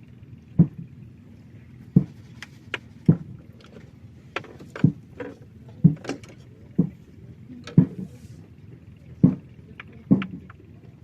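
A series of hollow knocks, about one a second and irregularly spaced, over a steady low hum.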